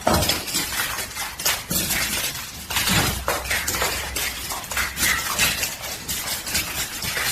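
Rapid, irregular clinking and clattering of hard objects.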